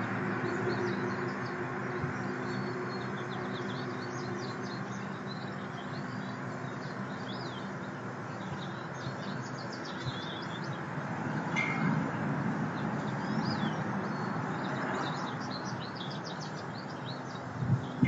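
Small songbirds chirping and twittering over a steady low background hum.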